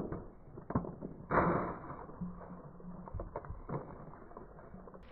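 Hard plastic toy cracking and crunching under a slowly rolling car tyre: scattered snaps, with the loudest crunch about a second and a half in.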